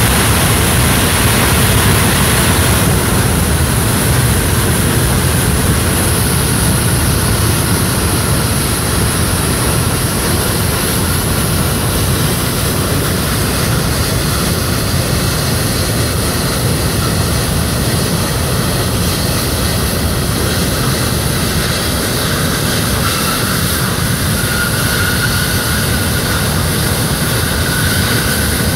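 Pratt & Whitney F117 turbofan engines of a C-17 Globemaster III running on the ground: a steady, loud jet roar with a deep rumble and a high hiss. A thin whine comes up in the last few seconds.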